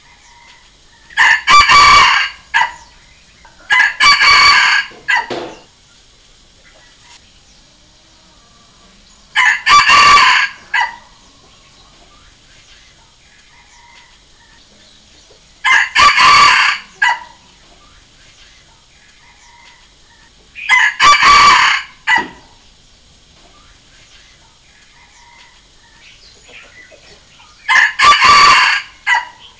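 Red junglefowl rooster crowing six times, each crow about a second and a half long, spaced roughly five to six seconds apart.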